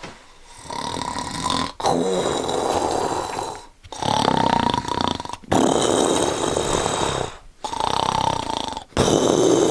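A man snoring, about six long snores one after another, each a second or two long with a brief silence between.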